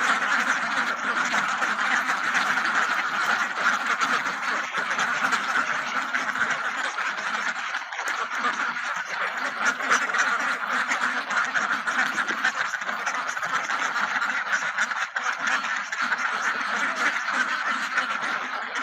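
Many ducks quacking at once, their calls overlapping into a steady, unbroken clamour.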